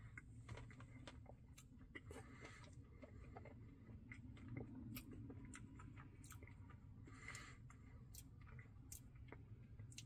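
Faint chewing of a Dairy Queen Blizzard, with scattered small mouth clicks.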